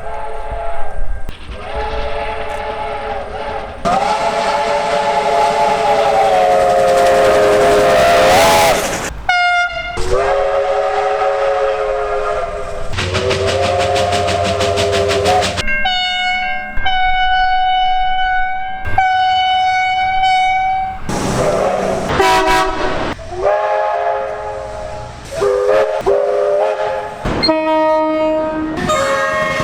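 Australian train horns sounding one after another, several separate recordings cut together: mostly multi-note chime chords, with some higher single-pitch horns. The longest blast lasts about five seconds and the rest are shorter toots, each cut off abruptly as the next recording starts.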